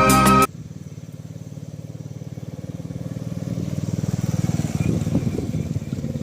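Background music cuts off abruptly about half a second in. Then a motorcycle engine runs with a steady, fast low pulse that slowly gets louder.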